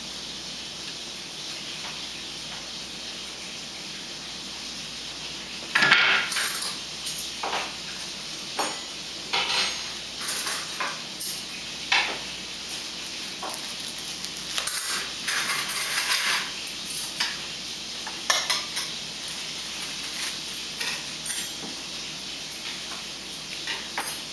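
Eating utensils clinking and tapping against small side-dish bowls, in short irregular clicks that begin about six seconds in, over steady room noise.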